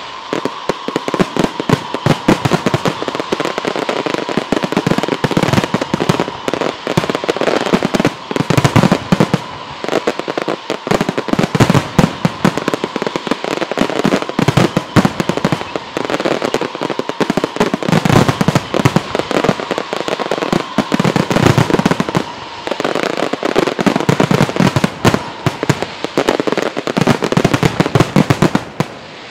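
Aerial firework shells bursting in a dense, continuous barrage: a rapid run of loud bangs overlapping with crackling, easing briefly near the end.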